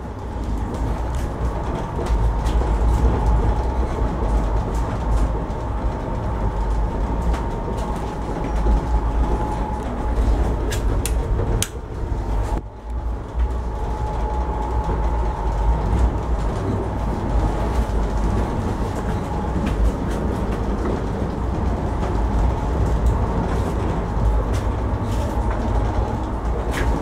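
Steady low rumble of a moving Indian Railways ICF air-conditioned passenger coach heard from inside, its wheels running on the rails. A faint steady whine and scattered light clicks and rattles run over it, and it dips briefly about halfway through.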